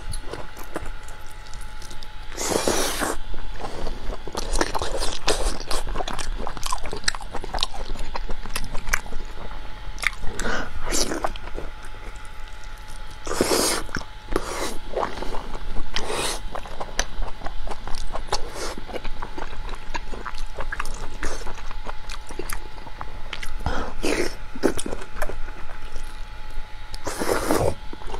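Close-miked wet chewing and biting of soft braised large intestine, with many small smacking mouth clicks and a few louder bursts, about three, thirteen and twenty-seven seconds in.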